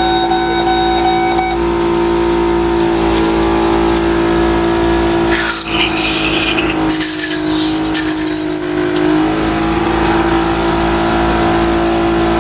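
Mechanical cough assist machine running: its blower hums steadily, with a rush of air between about five and nine seconds in as the pitch of the hum dips slightly.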